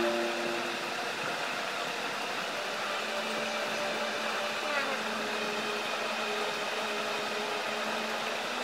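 Steady background noise: an even hiss with a faint low hum running underneath.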